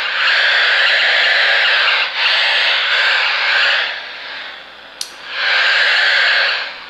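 Battery-powered AM radio tuned to an empty spot on the band, hissing loudly with static interference picked up from a plugged-in AC-to-USB power adapter. The loud static falls back to fainter static about four seconds in, a click comes near five seconds in, and the loud static returns for about a second and a half.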